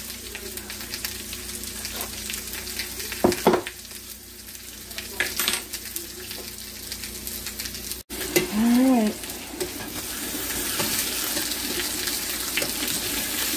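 Steak frying in a cast-iron skillet: a steady sizzle that gets louder in the second half. In the first half, a few sharp clinks of a metal fork against a drinking glass.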